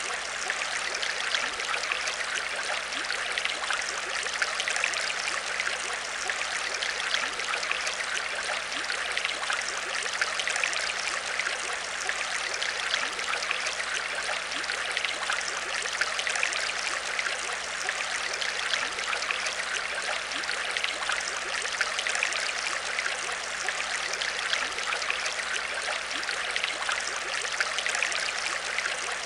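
Aquarium water trickling and splashing steadily, with a faint low hum underneath.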